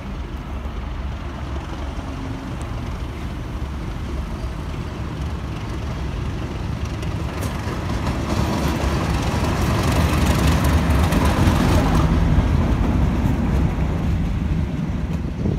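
Class 37 diesel locomotive with its English Electric V12 engine running as it approaches at low speed. The rumble grows louder and is loudest about ten to twelve seconds in as it passes close by, then eases off slightly.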